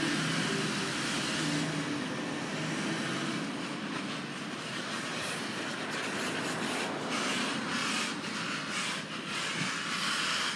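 A garbage truck's engine running as it pulls away, with a low hum in the first couple of seconds, followed by the hiss of passing car traffic.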